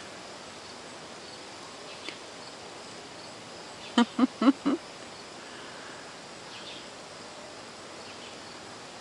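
A dog's squeaky toy squeaks four times in quick succession about four seconds in, over a steady outdoor background hiss.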